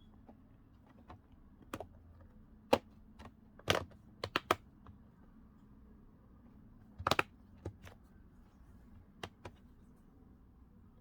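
Plastic bottom cover of a Lenovo IdeaPad 330s laptop being pressed into place, its clips snapping in. It gives a scatter of sharp clicks, some single and some in quick clusters.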